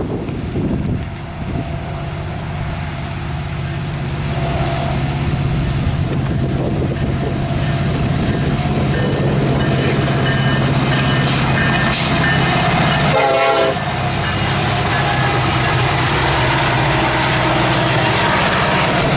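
Diesel freight train led by two EMD SD70M-2 locomotives approaching and passing, their engines running with a steady low drone and the air horn sounding. It grows louder over the first dozen seconds.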